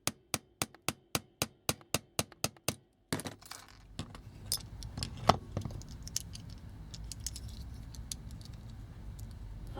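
Quick, even metal taps on a punch, about four a second, driving at a rivet in a die-cast toy. About three seconds in the tapping stops, and scattered light clicks follow, with one louder knock.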